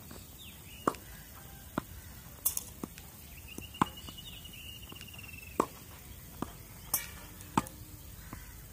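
Tennis balls struck by rackets and bouncing on a clay court: a string of sharp pocks, roughly one a second, loud where the coach feeds balls from close by and fainter where the player returns them from the far baseline.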